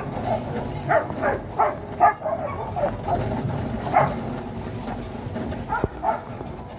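Sled dogs in harness barking and yipping: a quick string of yips in the first two seconds, then single barks about four and six seconds in.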